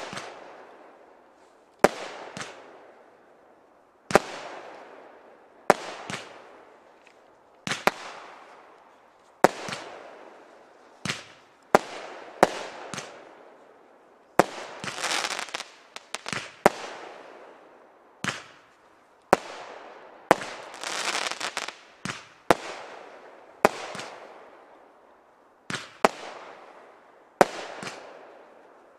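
Seismic Blast firework cake firing shot after shot: a sharp bang roughly every one to two seconds, each followed by a fading crackle as the stars burn out. About 15 and 21 seconds in, longer spells of dense crackling follow the bangs.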